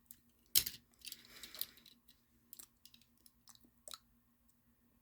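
Handling of diecast toy cars and their packaging on a desk: a sharp knock about half a second in, a second of rustling, then a few small clicks and taps.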